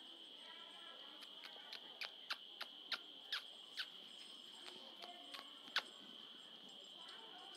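Steady, high-pitched insect chirring, with a dozen or so sharp clicks between about one and six seconds in.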